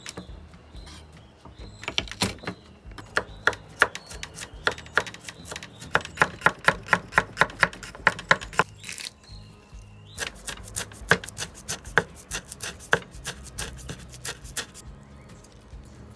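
Kitchen knife chopping peeled garlic cloves on a wooden cutting board: sharp knocks of the blade on the board, scattered at first, then a fast run of about five chops a second. After a short pause near the middle, the chopping resumes and stops shortly before the end.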